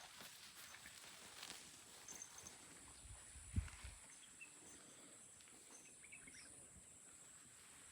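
Near silence: faint outdoor ambience with scattered small clicks, a few faint high chirps, and a single short low thump about three and a half seconds in.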